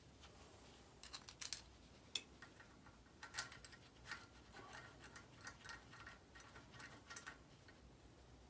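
Faint, irregular small clicks and taps of metal parts being handled and fitted by hand, the sharpest about one and a half and two seconds in.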